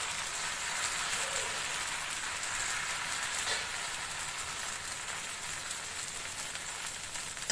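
Pearl millet dosa batter sizzling on a hot, oiled dosa griddle as it is spread out in circles with a ladle: a steady sizzle.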